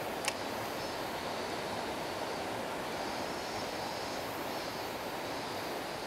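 Mountain stream running over a riffle: a steady rush of flowing water, with one short sharp click just after the start.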